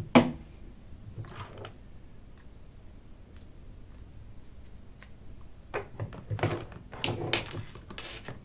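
A single sharp click just after the start, then after a quiet stretch a quick run of clicks and knocks near the end.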